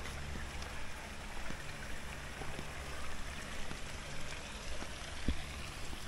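Steady rush of running water, with a faint low hum beneath it and a single dull thump about five seconds in.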